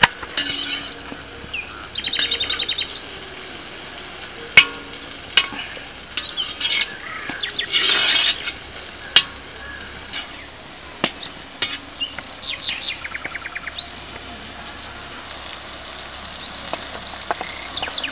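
A perforated metal spatula scraping and knocking against an iron kadai as vegetables are stirred and fried, with irregular sharp clinks over a soft frying sizzle. Birds chirp in short rapid trills several times.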